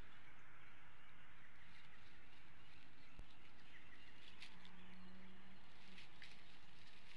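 Faint outdoor ambience from a nest camera in woodland: steady hiss with distant small birds chirping, a few sharp ticks, and a low steady hum that starts about four and a half seconds in and lasts about a second and a half.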